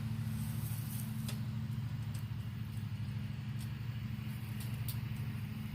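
A steady low motor hum, like an engine running, with a few light sharp clicks, three of them, that fit metal frame tubes being fitted together.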